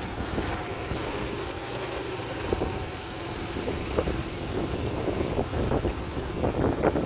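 Yamaha AG125 farm motorcycle's single-cylinder two-stroke engine running as the bike rides along, with wind buffeting the microphone.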